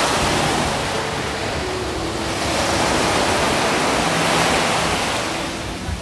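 Sea surf breaking and washing up a sandy beach, swelling and easing in long surges, with wind buffeting the microphone.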